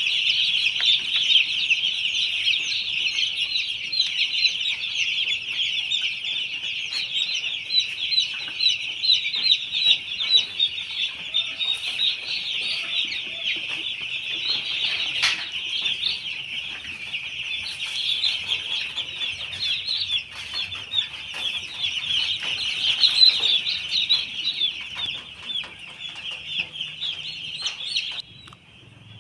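Broiler chicks in a poultry house peeping all at once, a dense continuous chorus of high chirps that cuts down suddenly near the end.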